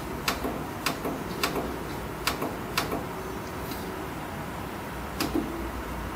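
Push buttons on a traffic signal controller's front panel clicking as they are pressed: five irregular presses in the first three seconds, then one more about five seconds in.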